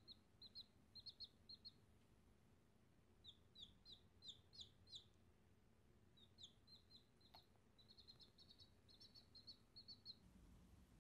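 Domestic chicken chick peeping: short, high, downward-sliding peeps in quick runs of several, with brief pauses between the runs, faint.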